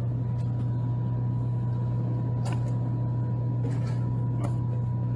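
Snack vending machine humming steadily, with a faint high steady tone above it and a few light clicks of its selection buttons being pressed, about two and a half, four and four and a half seconds in.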